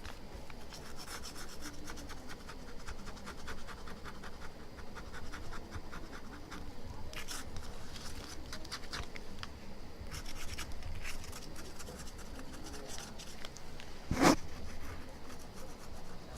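Plastic knife scraping old optical glue off an iPhone 6 Plus LCD panel in many short, light strokes. One louder sharp knock comes near the end.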